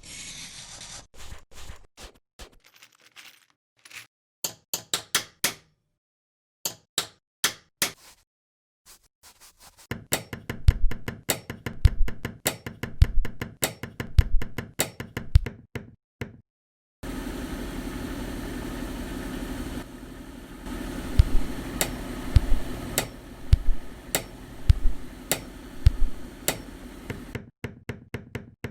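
Shoemaking work sounds in rhythmic runs of sharp taps and knocks, like a hammer on leather and tools on the workbench. About a third of the way in the knocks grow heavier and denser, with deep thuds. In the second half a steady hum runs under the knocking.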